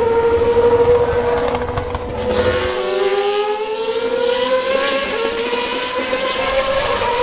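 Open-wheel formula race car engines running at high revs. From about two and a half seconds in, a rising pitch is heard as the cars accelerate out of the corner, over a steady engine tone.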